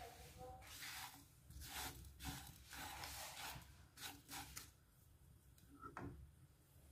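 Faint scraping and rubbing of a spatula stirring diced apples with sugar and butter in a nonstick frying pan, in several short strokes.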